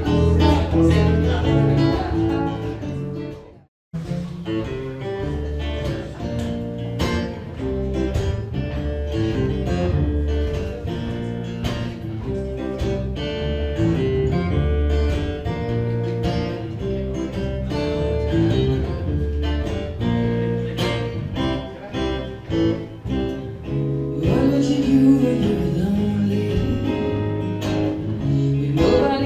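Two acoustic guitars playing together live, plucked and strummed, with a woman's voice singing near the end. The music cuts out completely for a moment about four seconds in.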